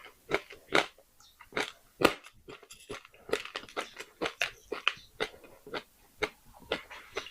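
Close-up crunching of baked clay pot pieces being bitten and chewed: sharp, irregular crunches, about two a second, the loudest about two seconds in.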